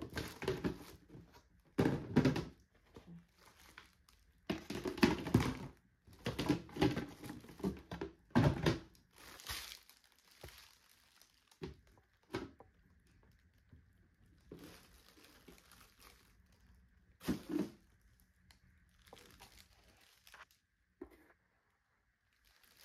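Clear plastic storage boxes being handled and stacked: hollow plastic knocks and thunks mixed with the rustle of plastic wrapping. They come in separate bursts, thickest in the first half, with a few short sharp knocks later and one more burst past the middle.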